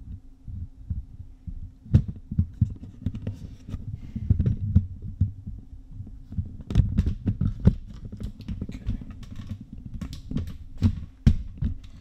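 Handling noise from a handheld camera being moved about: irregular low thumps and rumbles with a few sharp knocks, over a steady low hum.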